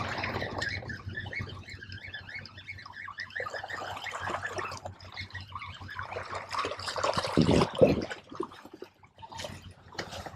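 Small waves lapping and splashing against rocks at the water's edge, uneven and washing, with one louder rush of noise about three-quarters of the way in.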